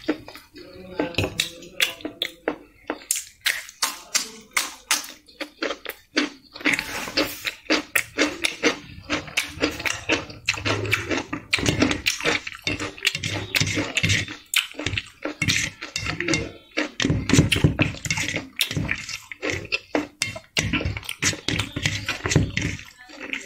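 Close-up eating sounds: chewing a mouthful of rice and chicken liver fry, heard as a rapid, uneven run of wet clicks and smacks, with fingers mixing rice on a steel plate.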